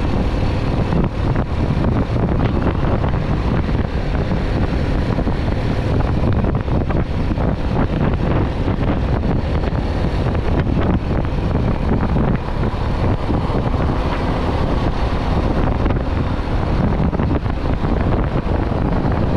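Motorcycle riding at steady speed: heavy wind rushing over the microphone, with the bike's engine and road noise running underneath.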